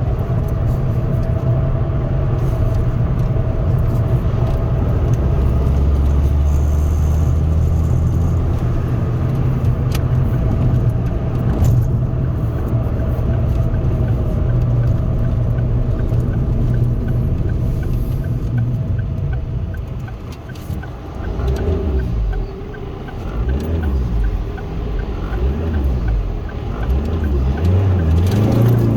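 Remapped Ford Focus 1.8 TDCi four-cylinder turbodiesel driving, heard from inside the cabin: a steady low engine and road drone. About two-thirds of the way through the sound drops off, then the engine note rises and falls again as it pulls.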